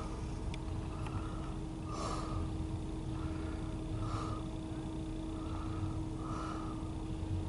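A person breathing in and out through the nose close to the microphone, about one breath every two seconds, over a steady low hum.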